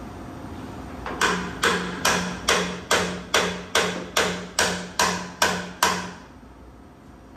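Twelve sharp, ringing metallic knocks, evenly spaced at about two and a half a second, with a steady low hum underneath while they last. They start about a second in and stop about a second before the end.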